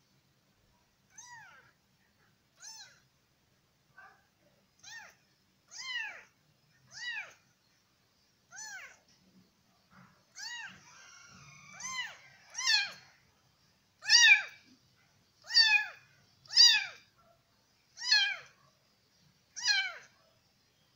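A weeks-old kitten meowing over and over, about fifteen short, high-pitched mews that each rise and fall in pitch, coming roughly once a second. The mews grow louder about halfway through.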